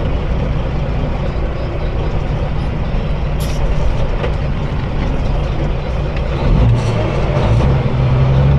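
Kenworth semi-truck's diesel engine running under way, with road noise, heard from inside the cab. There is a brief sharp click about three and a half seconds in, and the engine drone gets louder and steadier from about two-thirds of the way through.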